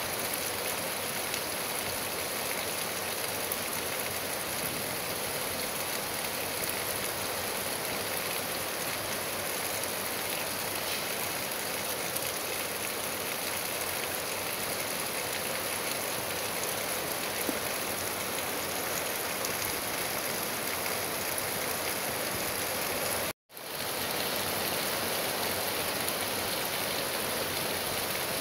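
Steady rain falling on trees and grass, an even hiss with no pauses in it. About three-quarters of the way through, the sound cuts out for a split second and then comes straight back.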